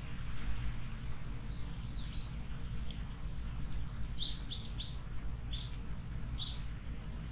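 Small wild bird chirping: a few faint high notes, then five sharper short chirps in quick succession from about four seconds in, over a steady low background rumble.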